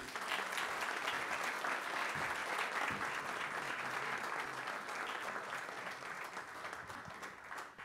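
Audience applauding, many hands clapping steadily and tapering off near the end.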